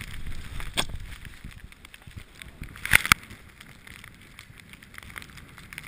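Snowboard sliding and scraping over snow, with wind on the microphone and a few sharp knocks, the loudest a pair about three seconds in.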